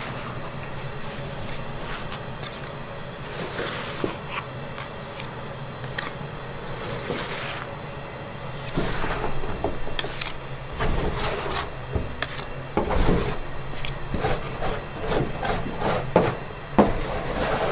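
Metal scrapers scraping and tapping on a metal-covered table as a mass of brown sugar is chopped and broken into crumbs: irregular scrapes and sharp clicks that get busier and louder about halfway through.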